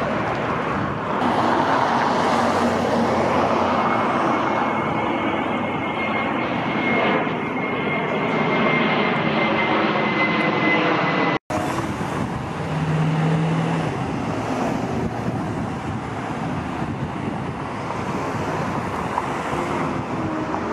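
Jet airliner passing overhead: a steady rushing roar with a faint high whine that slowly falls in pitch. It cuts off abruptly about eleven seconds in, and a steadier, slightly quieter rush follows.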